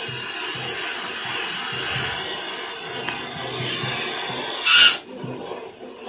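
Oxy-fuel torch flame hissing steadily as it heats a steel bar. Near the end comes one brief, much louder rush of gas, after which the hiss is quieter.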